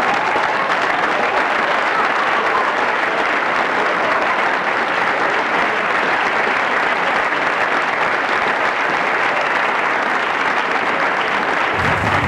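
Steady applause, many hands clapping evenly without a break.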